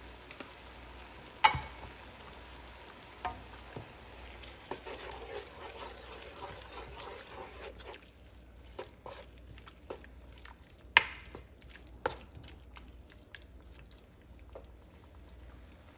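Wooden spoon stirring shrimp and peppers in a ceramic nonstick pan, with a few sharp knocks of the spoon against the pan, the loudest about a second and a half in and about eleven seconds in.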